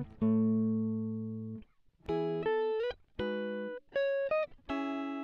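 Background music of plucked guitar notes played in short phrases with brief gaps, some notes sliding up in pitch.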